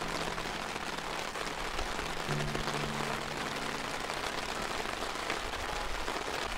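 Steady rain falling, heard as an even hiss, with a few low held notes of background music under it from about two seconds in.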